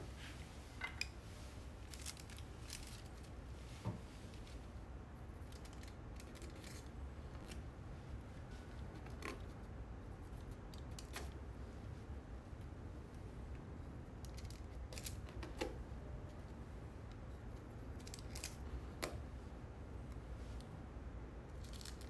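Faint, scattered clicks and light snips of hands handling small sheets of gold leaf and paper, over a low steady hum.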